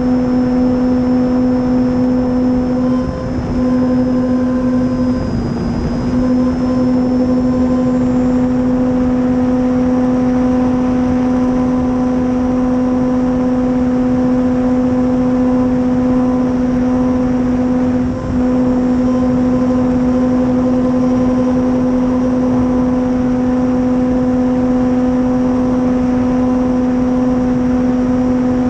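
Electric brushless motor (Dual Sky 480) and propeller of an RC warplane running at steady throttle, heard from on board: a constant droning hum at one pitch over wind rush. It dips briefly about 3, 5 and 18 seconds in.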